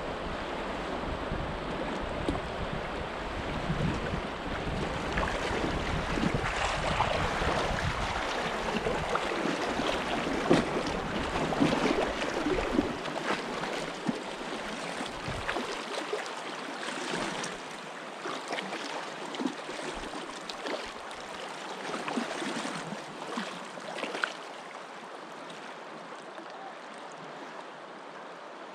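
River current rushing and lapping around a drifting inflatable pontoon boat. Wind rumbles on the microphone for about the first half, then drops away, and a few short sharp clicks stand out, most around ten to twelve seconds in.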